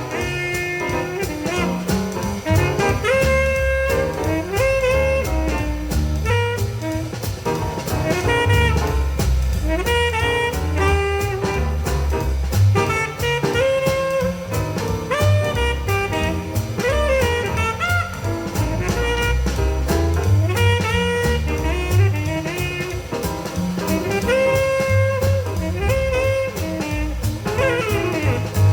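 Jazz with a saxophone lead over bass and drums, played back through loudspeakers driven by a parallel single-ended 300B triode tube amplifier.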